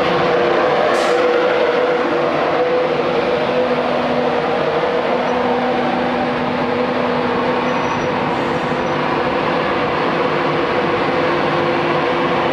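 Class 91 electric locomotive humming steadily, a hum of several steady tones over a rumble, with a short high hiss about a second in.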